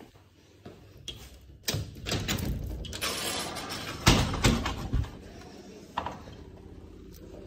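A series of knocks and thumps with rustling handling noise between them, the loudest knock about four seconds in.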